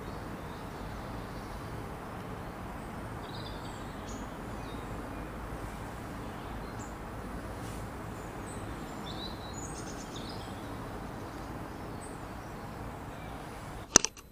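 Woodland ambience: a steady outdoor hiss with small birds chirping here and there. Near the end comes a single short, sharp click.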